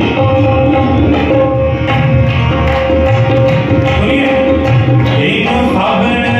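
Harmonium playing held chords of a Punjabi Christian devotional song over a steady hand-drum rhythm, with a man's singing voice joining near the end.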